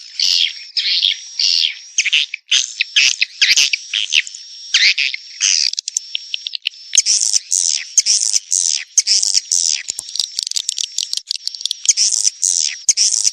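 Swiftlets twittering: rapid high chirps and clicking trills in quick succession, with a thin steady whistle underneath. It is a swiftlet call track of the kind played to lure young swiftlets.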